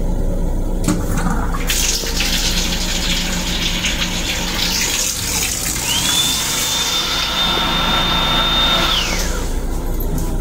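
Water running from the restroom sink's hands-under faucet, with a high whine that rises about six seconds in, holds steady, and drops away near the end.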